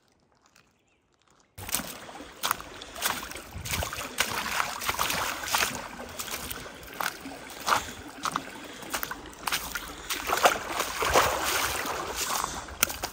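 Water splashing and sloshing close to the microphone, with many irregular knocks and splashes, starting suddenly about a second and a half in.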